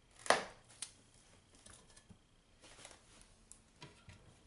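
A knife cutting bell pepper on a cutting board: one sharp, crisp cut about a third of a second in, then a few fainter clicks and taps of knife and pepper pieces.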